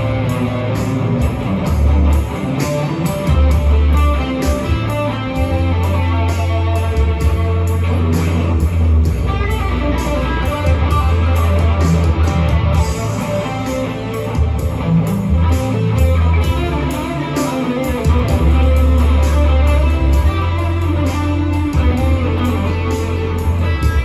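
Telecaster-style electric guitar improvising a melodic lead over a backing track with a bass line and a steady drum beat.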